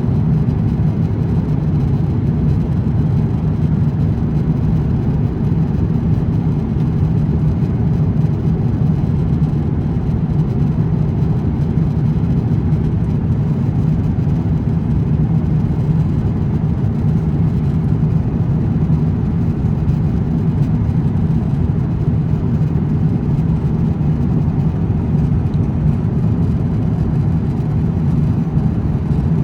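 Airbus A350-900 cabin noise in flight: a steady low drone from the Rolls-Royce Trent XWB engines and airflow past the fuselage, heard from a window seat.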